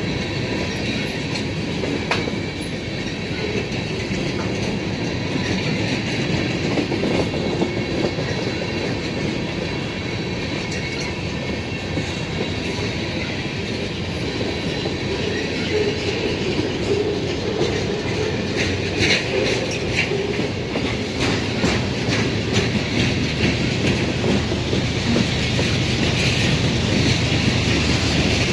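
A Norfolk Southern mixed freight train's cars rolling past close by: a steady rumble of steel wheels on rail with clickety-clack over rail joints, the clicking busiest about two-thirds of the way through.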